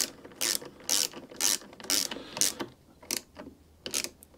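Ratchet wrench on a long extension clicking in short rasps, about two a second, as it tightens the choke cable clamp screw on a lawn mower carburettor. The rasps die away shortly before the end.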